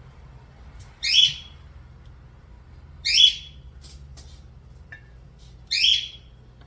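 A bird calling three times, each a short call about two seconds apart.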